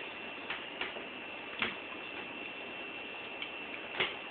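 A chip being bitten and chewed: a few faint crunches over quiet room hiss with a steady high whine.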